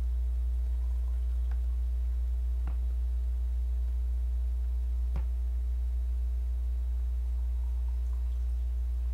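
Steady low electrical hum, with three faint clicks about a second and a half, two and three-quarter and five seconds in.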